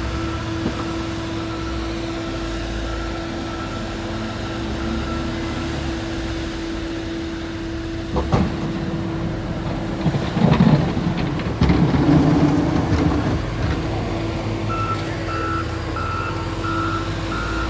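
Heavy snow-clearing machinery, a wheel loader and dump trucks, running with a steady engine hum. A sharp knock comes about eight seconds in, a louder stretch of rumbling and clatter follows a couple of seconds later, and near the end a backup alarm beeps about once every 0.7 seconds.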